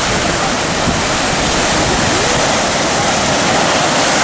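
Heavy surf of 3 to 4 foot seas breaking steadily in a continuous wash of crashing waves, with strong wind buffeting the microphone.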